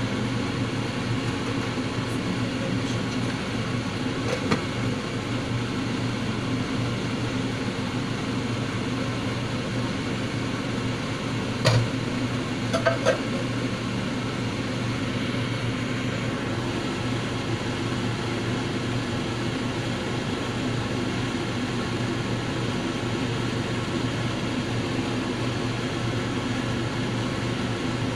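Steady low mechanical hum in a kitchen. A sharp clink comes about twelve seconds in, with a few lighter knocks a second later, as a glass lid is set on a saucepan on the stove.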